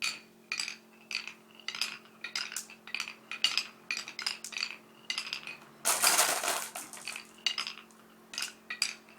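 Marbles clicking and clinking as they run down a marble run, a quick irregular series of sharp ringing clicks, with a louder, denser rattle lasting about a second near the middle.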